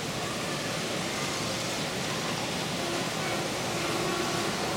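Steady, noisy room ambience of a large indoor hall, with faint, indistinct voices in the background.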